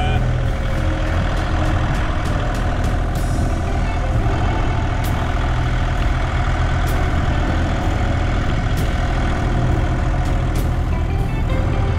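Excavator's diesel engine running steadily at a constant speed, with light ticks about every two seconds.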